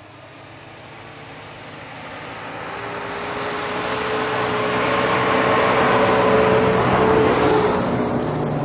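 Nissan Patrol's TB48 4.8-litre straight-six petrol engine working hard as the SUV ploughs through deep snow. It grows steadily louder as the vehicle comes closer, peaks about six seconds in, then eases a little.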